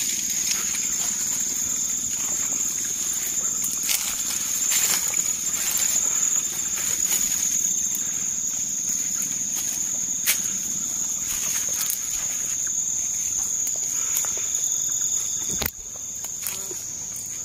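Steady high-pitched chirring of night insects, with scattered rustles and snaps of footsteps through undergrowth. A sharp click comes near the end.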